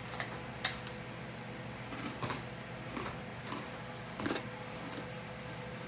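Scattered light knocks and clicks, about half a dozen, as a board and kitchen things are handled and set down, over a steady low hum.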